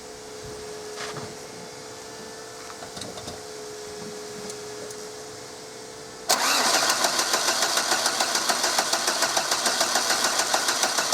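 A faint steady hum with a few small clicks, then about six seconds in the Audi A6's 1.9 TDI diesel is suddenly cranked on the starter motor, an even fast pulsing of about six beats a second. It is a start attempt after the injection pump was refitted, and the engine does not fire.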